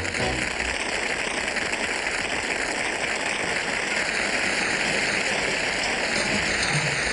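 Garbage truck running: a steady hiss-like mechanical noise that does not change.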